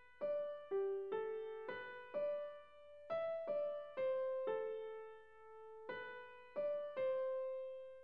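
Background music: a slow, gentle melody of single electric-piano notes, each struck and fading, about a dozen in all with a short pause midway, ending on a longer held note.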